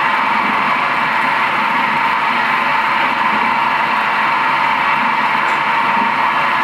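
Nagema bowl cutter running steadily, its rotating bowl and spinning knives chopping meat into sausage batter. An even machine noise with a prominent mid-pitched whine that holds constant throughout.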